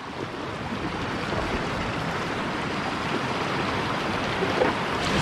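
Rushing whitewater of a river rapid: a steady noisy hiss of moving water that builds over the first second and swells again near the end.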